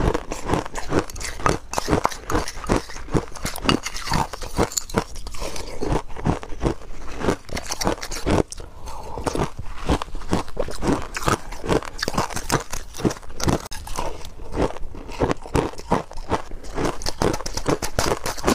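Close-miked chewing of crushed ice: loud, crisp crunches, about two to three a second, with a short lull a little before halfway.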